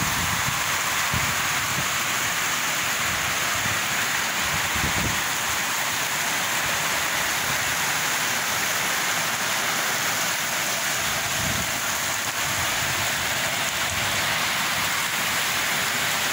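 Heavy rain pouring steadily onto flooded pavement, a dense, even hiss.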